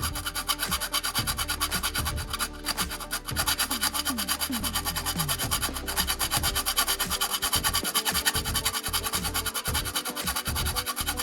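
Background music with a fast, steady beat and low notes that slide downward.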